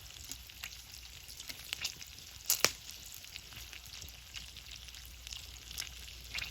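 Seafood paella sizzling in an iron paella pan over a wood and charcoal fire: a steady hiss with scattered small pops and crackles, and a louder double pop about two and a half seconds in.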